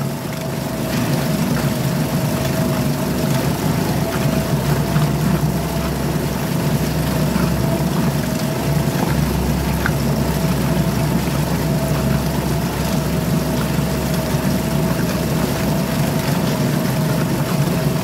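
Suzuki DF2.5 2.5 hp single-cylinder four-stroke outboard motor running steadily, its propeller churning water in a test barrel.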